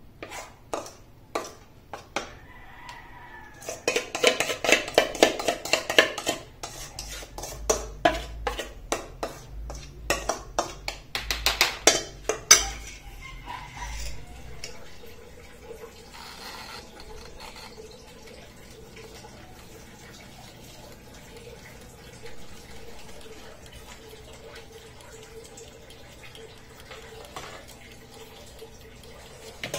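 A utensil scraping and clinking against a stainless steel mixing bowl as thick cake batter is poured into tin pans, in quick runs of scrapes for about the first 13 seconds. Then it goes quieter, with only a faint steady hum.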